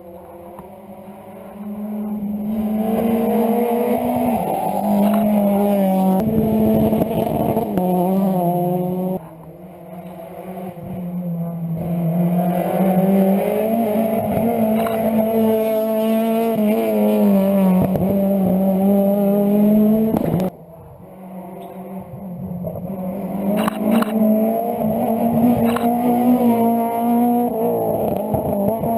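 Rally car engine driven hard on a stage, its note climbing and falling as it is pushed through the gears. The throttle is abruptly lifted twice, about nine seconds in and again about twenty seconds in, and each time the engine pulls hard again afterwards.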